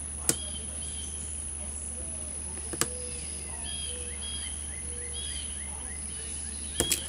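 A few sharp metallic clicks from picking a Master Lock No. 150 padlock: single clicks near the start and middle, and a close double click near the end as the lock comes open. Behind them, a bird chirps in repeated short calls over a steady low hum.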